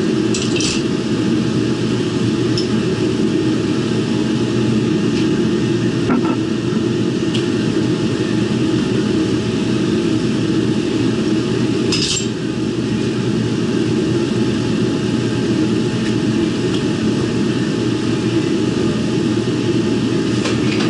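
A machine running steadily with a constant hum, with a few short light metallic clinks, the clearest about 12 seconds in.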